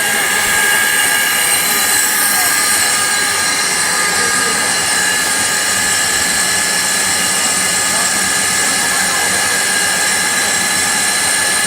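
Heavy-duty CNC roll turning lathe running: a steady hiss with several steady high whining tones and no change in level.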